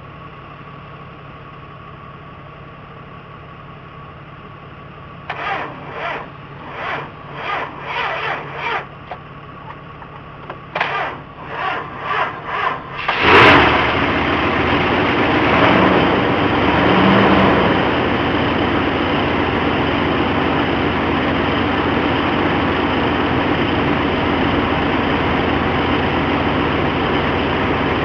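1964 Chrysler Imperial's V8 being cranked by its starter in two tries, about six rhythmic cranking strokes then about five more, before it catches about 13 seconds in. It fires into a loud steady run, rises briefly a few seconds later, then settles into a steady idle.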